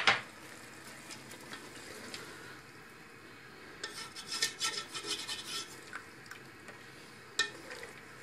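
A bamboo spatula stirring mutton in watery tomato gravy in an aluminium pot, with a run of scraping strokes about four seconds in. A sharp knock sounds at the very start and another near the end.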